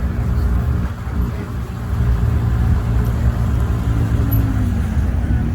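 Motorcycle engines rumbling, with one engine's note dropping about four and a half seconds in, under background voices.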